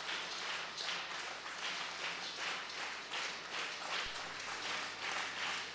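Congregation clapping in a steady rhythm, about two to three claps a second.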